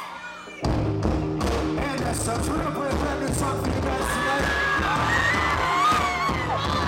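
A live rock band comes in loud about half a second in and plays on with a steady beat, while the crowd whoops and cheers over it.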